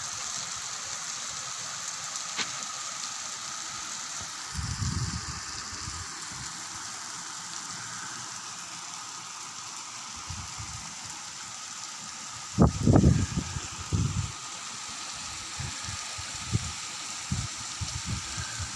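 Steady rain falling, an even hiss, with a few short low rumbles, the loudest a little past the middle.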